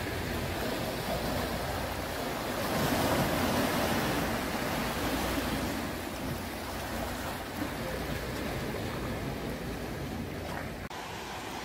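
Small sea waves washing over shoreline rocks: a steady rushing wash that swells a little about three seconds in. It cuts out for an instant near the end.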